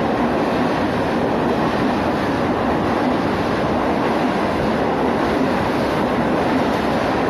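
Train running, a loud, steady rumble and rush of wheels on track with no pauses or distinct beats.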